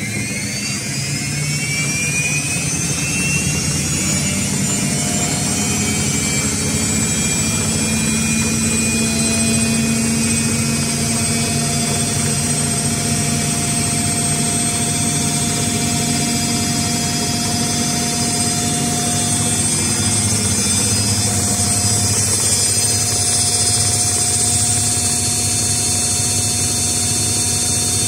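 Whirlpool AWE7516 top-loading washing machine spinning up for its final spin at 1000 rpm in service test mode: the motor and belt-driven drum give a whine that rises over the first several seconds and then holds steady at full speed, over a steady low drone.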